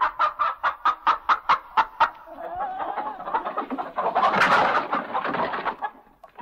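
Laughter: a quick run of 'ha' pulses about five a second, then a longer, breathier outburst that peaks about four seconds in and dies away near the end.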